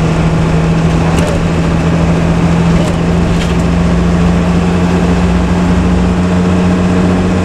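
Intercity bus running steadily on the highway: a constant engine drone that creeps up slightly in pitch, over low rumble and road noise.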